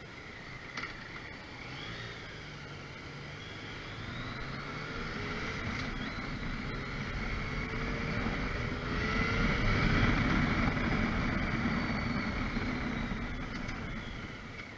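Road traffic at a city intersection: a vehicle's engine comes up, changing pitch as it goes, is loudest about ten seconds in, and fades away.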